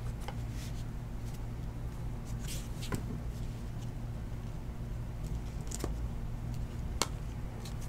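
Panini Illusions football trading cards handled in a stack, slid and flicked one by one, giving a few soft clicks and taps of card edges, over a steady low hum.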